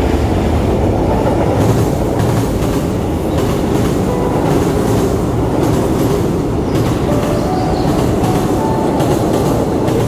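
Train crossing a steel truss railway bridge overhead: wheels running over the rails and bridge deck in a steady, loud rumble.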